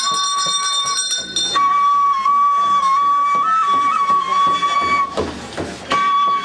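A wooden flute played in a slow melody, holding one high note for long stretches and stepping briefly up and back a few times. It breaks off for under a second near the end, where a short rush of noise fills in, then resumes.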